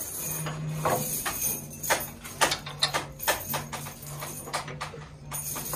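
Threaded metal rods clinking and jingling against each other as a bundle is handled and shaken over a tub of liquid, with irregular sharp clinks throughout and liquid splashing off them, over a steady low hum.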